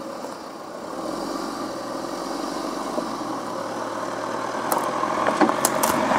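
Jeep Compass engine running at low speed as the SUV crawls over rocks, growing louder towards the end. A few sharp clicks and cracks of stones under the tyres come about five seconds in.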